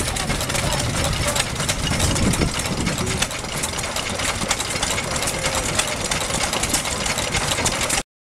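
Old stationary 'hakkepuf' engines running, a steady rapid knocking and puffing of their firing strokes. It cuts off abruptly near the end.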